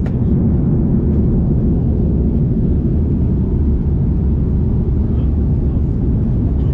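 Steady low roar of an Airbus A330-300 in flight, engine and airflow noise as heard inside the passenger cabin.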